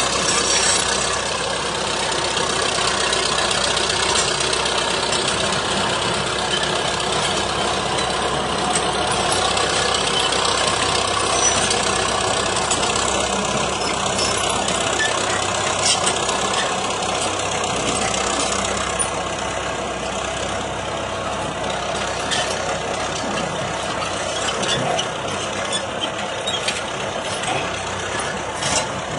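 Caterpillar D7 steel-track crawler tractor's diesel engine running steadily as the machine moves, with scattered short clanks.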